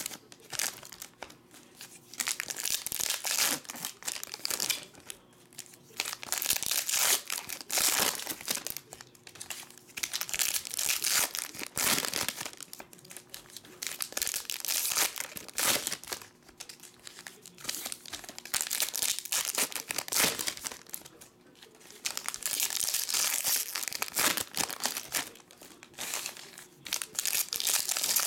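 Foil wrappers of 2013 Panini Elite football card packs being torn open and crinkled by hand, in repeated bursts with short quieter pauses between.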